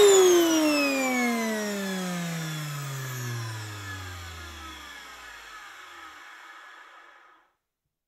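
Vacuum cleaner switched off, its motor whine falling steadily in pitch and fading as the motor spins down, dying away after about seven seconds.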